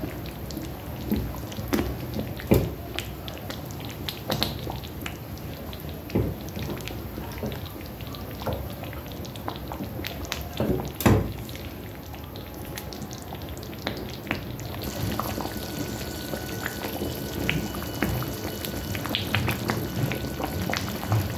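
Thick tomato stew bubbling in a pot, its sauce popping in scattered small clicks, while a wooden spoon stirs it and knocks against the pot twice.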